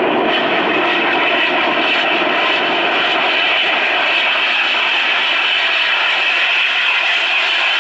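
Peppercorn A1 Pacific steam locomotive 60163 Tornado working hard under a heavy exhaust, a continuous rush of exhaust and running noise with no separate beats. The sound grows brighter as it draws nearer.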